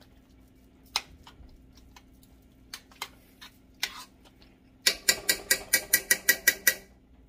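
A metal spoon clinks against the sides of an enamelled cast-iron pot as thick rice and beans are stirred. A few separate clinks are followed, about five seconds in, by a quick run of about a dozen.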